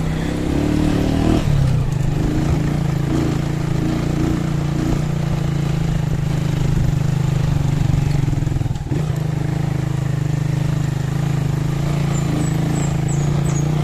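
Small motorcycle engine running steadily at an even low speed while the bike is ridden over a rough dirt track, with scattered knocks from the bumps.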